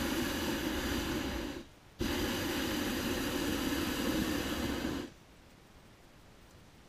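Hot air balloon's propane burner firing during hot inflation, heating the air to stand the envelope up. There is a steady roar for about a second and a half, a short break, then a second blast of about three seconds that cuts off abruptly.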